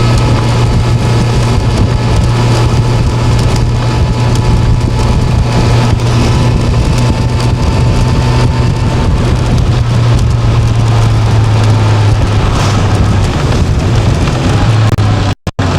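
Motorcycle running at road speed, its engine a steady low drone under a loud rush of wind and road noise. The sound cuts out twice, briefly, near the end.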